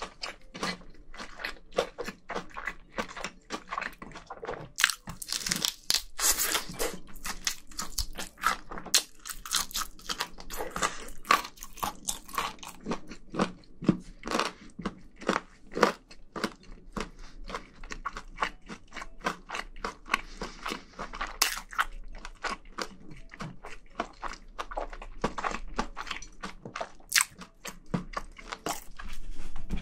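Close-miked crunching and chewing of a spicy chicken drumstick: irregular wet bites and crackles of the coating, with no words.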